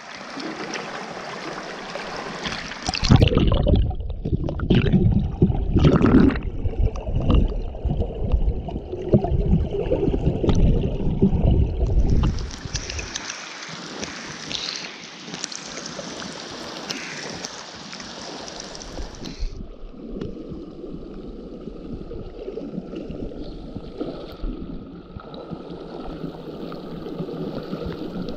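River water rushing and gurgling around a partly submerged camera, with loud, irregular low churning for the first dozen seconds. Then heavy rain hisses on the river surface for several seconds, and the sound settles into a quieter steady wash of flowing water.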